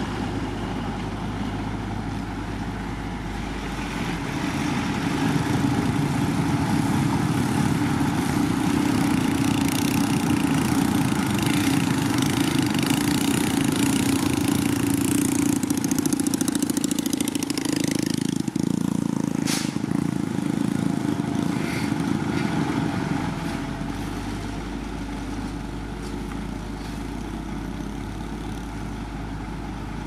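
Heavy construction machinery engine running steadily. It grows louder about four seconds in, as if working or passing close, and eases back down about twenty-three seconds in.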